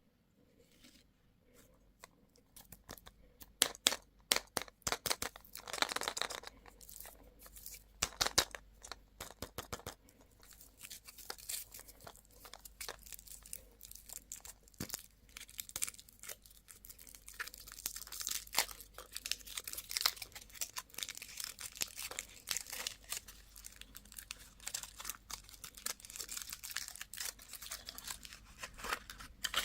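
Candy and toy wrappers being crinkled and torn open by hand: dense crackling with sharp snaps, starting about three seconds in and running on steadily.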